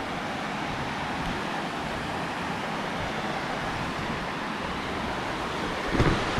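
Steady rushing of a creek and waterfall, an even hiss of running water, with a brief knock near the end.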